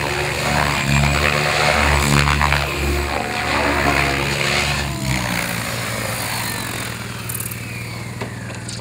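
Radio-controlled helicopter flying aerobatics, its rotor blades sounding loud and surging and easing as the pitch changes. About five seconds in the blade noise drops, and the rotor and motor wind down with a falling whine.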